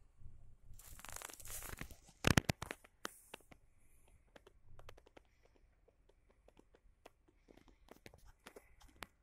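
Saba HiFi TG 674 reel-to-reel tape recorder playing a tape through a quiet gap, with scattered clicks and crackles. There is a burst of rustling noise about a second in and a cluster of sharp clicks just after two seconds, which are the loudest sounds.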